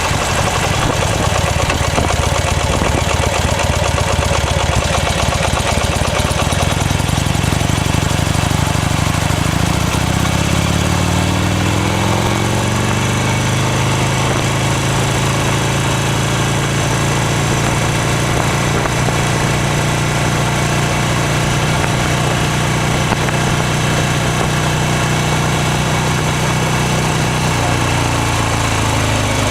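Buell XB9S Lightning's air-cooled V-twin engine running while riding: its pitch climbs about ten seconds in as the bike accelerates, holds steady while cruising, then drops near the end as it slows.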